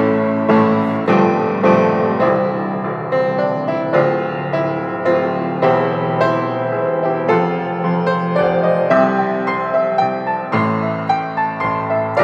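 Grand piano played solo: an instrumental passage of chords and melody, with notes struck in a steady, continuous flow.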